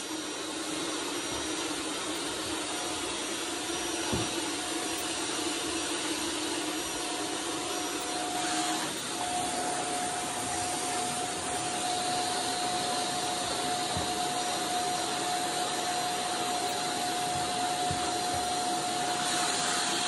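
Shark Stratos vacuum cleaner running steadily in lift-away mode as its attachment is worked over carpeted stair treads. About nine seconds in, its motor tone shifts to a higher, steady whine.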